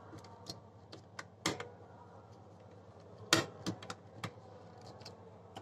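A few scattered small clicks and taps of a wire being fitted into the terminals of an electrical contactor, two of them louder than the rest.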